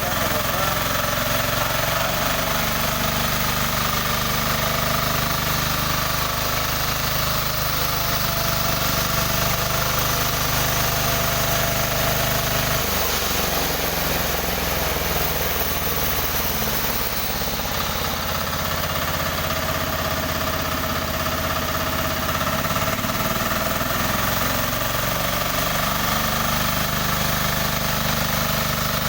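Newly assembled sawmill machine running steadily on a test run, its low drone shifting in pitch about halfway through and again a few seconds later.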